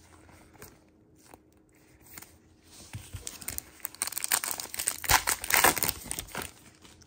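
Plastic wrapper of a 2022 Donruss football card pack being torn open and crinkled by hand. Quiet for the first few seconds, then a dense crackling rustle from about three seconds in that fades away near the end.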